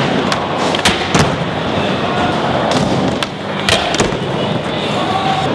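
Skateboard wheels rolling steadily, broken by several sharp clacks of the board's deck and trucks hitting the ground and rail.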